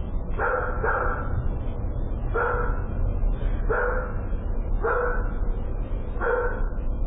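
A dog barking repeatedly, about six short barks roughly a second or so apart, over a steady low rumble.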